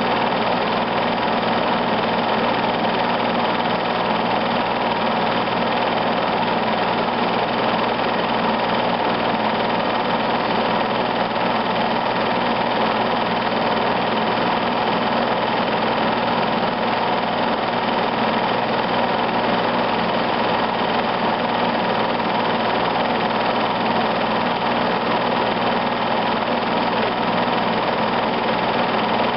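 Home-movie film projector running steadily, a constant mechanical whirr and rattle with a low steady hum.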